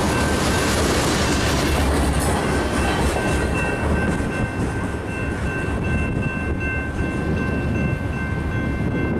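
Freight train cars rolling past, a steady rumble with wheels clattering over the rail joints. From about three seconds in, a thin steady high-pitched ring from the wheels rides on top.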